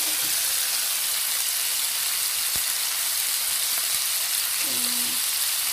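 Thin slices of beef frying with garlic in hot oil in a pan, a steady sizzle, with a single light knock about two and a half seconds in.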